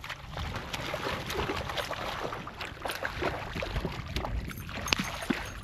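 Water splashing and lapping against a kayak's hull, with scattered light knocks and clicks.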